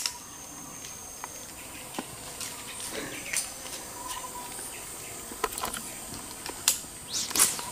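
Steady high-pitched buzzing of swamp-forest insects, with a few scattered clicks and knocks, the loudest near the end.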